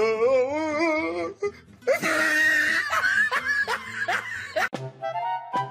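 People laughing loudly: a wavering laugh, then a high shrieking laugh and a few shorter bursts. Music starts about five seconds in.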